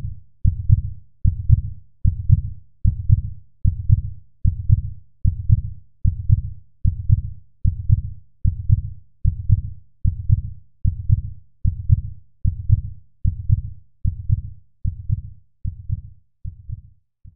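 A steady, deep thumping beat, about one and a half thumps a second, with each thump dying away quickly; the thumps grow weaker near the end.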